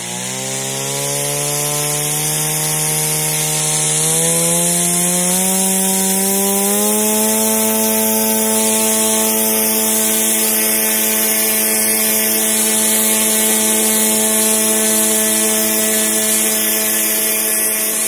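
The rescue drone's motor spinning up, rising in pitch in a couple of steps over the first seven seconds, then holding a steady, even tone at high throttle. The drone needs close to full throttle to keep moving on grass, its small undercarriage wheels dragging.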